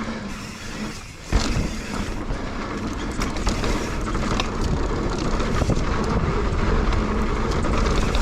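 Wind buffeting the microphone and mountain bike tyres rolling over a dirt trail, starting suddenly about a second in and slowly growing louder as the bike gathers speed. Scattered clicks and knocks come from the bike over rough ground.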